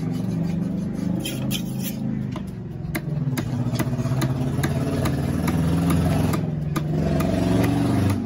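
An engine running with a steady low hum. Sharp knocks of a heavy knife striking a wooden chopping block come every so often.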